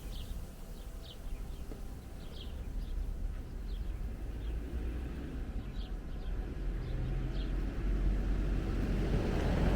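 Small birds chirping, short high calls about once a second, over a low rumble that swells and grows louder toward the end.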